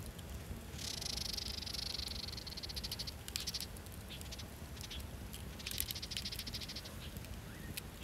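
Wood campfire burning, with scattered sharp crackles and pops over a low steady rumble. Twice a fluttering, pulsing hiss rises out of the fire, the first for about two and a half seconds, the second shorter near the end.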